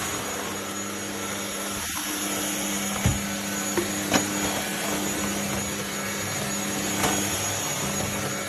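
Anyson cordless stick vacuum cleaner running steadily: a constant rushing motor sound with a low hum and a thin high whine, broken by a few short knocks about three to four seconds in.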